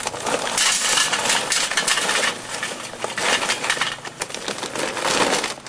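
Heat Beads charcoal briquettes poured from the bag into a metal charcoal basket in a Weber kettle barbecue, clattering and rattling as they tumble onto the steel and each other. The rattle eases briefly around the middle, then picks up again as the pour continues.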